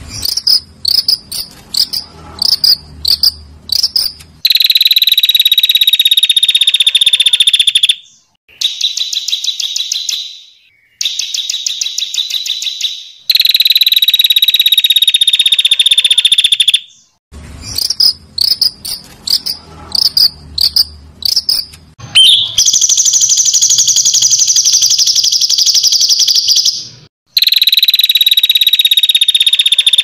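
Recorded animal call: a loud, high-pitched buzzing trill in long bouts of about three to four seconds, each sliding slightly down in pitch, alternating with choppy, broken runs of short notes. It is played as masteran, a tutoring recording for caged songbirds.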